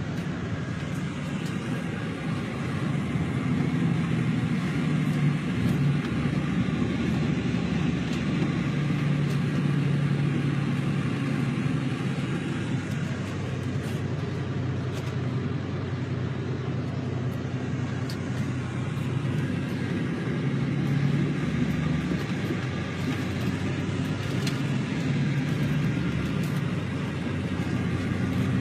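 Greyhound coach bus under way, heard from inside the passenger cabin: a steady engine drone and road noise with a low hum that swells and eases slightly.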